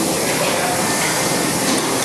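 Steady machinery din: an even, unbroken rushing noise with no clear rhythm, from machines running in a factory workshop.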